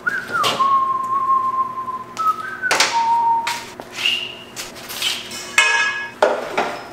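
A man whistling a short tune of a few held notes, each starting with a slide in pitch. Sharp knocks and metal clinks of steel tube being handled follow, with a brief ringing clatter in the second half.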